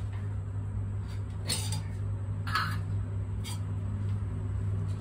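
A steady low hum with three brief light knocks about a second apart, the first about a second and a half in.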